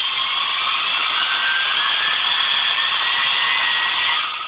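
Cordless drill motor, powered by a laptop charger wired to its battery terminals, running with a steady whine that slowly rises in pitch as it spins up to almost full speed, then stops suddenly near the end.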